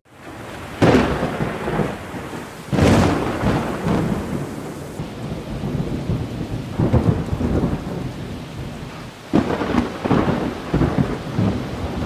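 Thunder rumbling four times over a steady downpour of rain, each peal swelling suddenly and dying away slowly.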